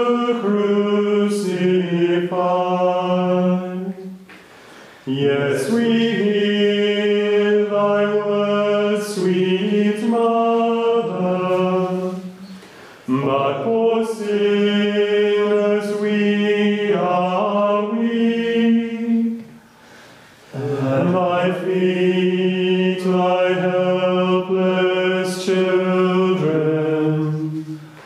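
Men's voices chanting plainchant in unison, holding long sustained notes. The chant runs in four long phrases with short breaks for breath between them.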